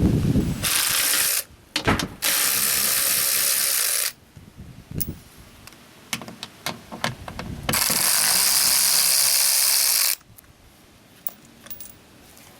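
Ratchet wrench spun in three quick bursts, each a second or two of dense clicking, with scattered single clicks of tool handling between.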